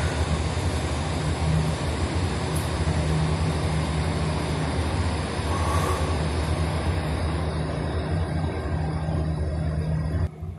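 A steady low mechanical hum with a rushing noise over it, cutting off abruptly near the end.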